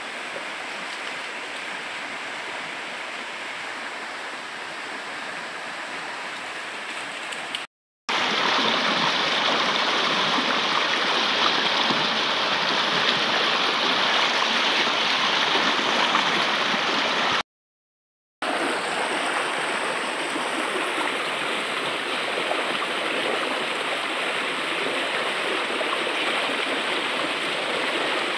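Shallow rocky stream rushing and gurgling over boulders, a steady even rush. It grows louder and brighter in the middle stretch, where water pours down a small cascade between rocks close by. The sound cuts out twice for a moment.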